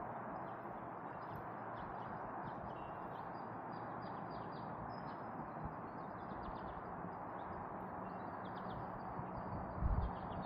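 Small birds chirping in quick, repeated short notes over a steady background hiss, with one low thump near the end.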